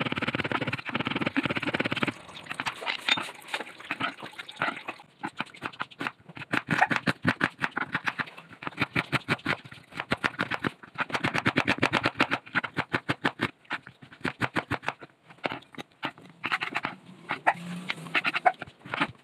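Chef's knife chopping on a wooden cutting board, first mincing garlic, then dicing red onion: quick, even knocks of the blade on the board, several a second, in runs with short pauses between them.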